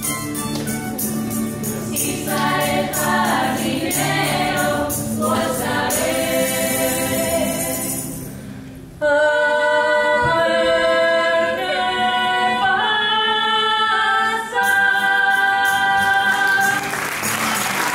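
Women's tuna choir singing in unison and harmony over strummed guitars and bandurrias. After a brief dip about halfway, the voices come back loud on long held notes for the song's closing phrases. Applause breaks out just before the end.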